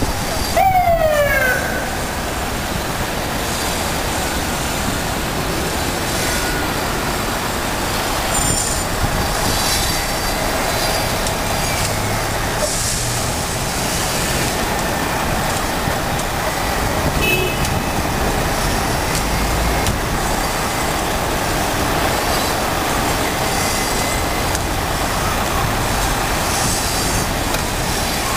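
A siren winds down in pitch for about a second at the start. After that comes steady, loud street noise of vehicle engines and passing traffic.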